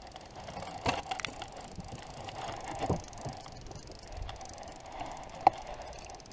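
Small boat outboard motor running steadily at slow trolling speed, with a few sharp knocks and clicks, the loudest about five and a half seconds in.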